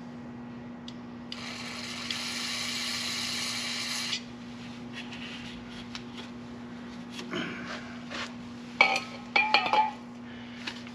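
Aerosol spray can hissing steadily for about three seconds, spraying into a stuck brake caliper slide pin. Several sharp metallic clinks with a brief ring follow near the end, from tools or parts being handled.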